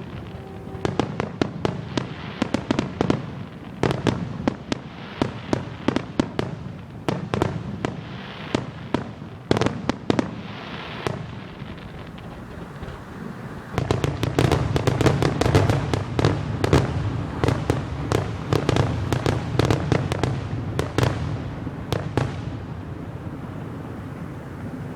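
Aerial fireworks grand finale: a rapid string of sharp bangs and crackles that builds to a dense, continuous barrage about halfway through, then thins out and dies away near the end.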